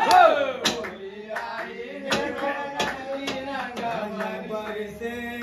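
Men's voices singing and chanting a Holi song, beaten out on a steel thali plate struck by hand, with sharp metallic taps about every half second to second. A loud shout opens it.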